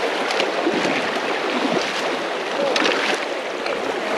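A river's flowing water rushing steadily.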